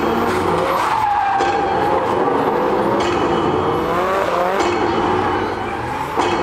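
Nissan Silvia drift cars sliding, engines revving with the pitch rising and falling while the tyres squeal and skid.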